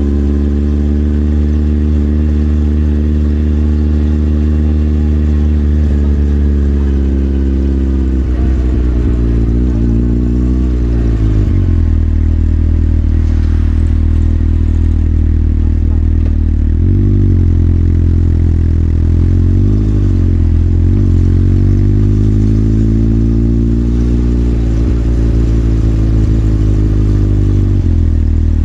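Motorcycle engine running under way, its pitch rising and falling with the throttle. It drops and climbs again several times through the middle, then holds steadier near the end.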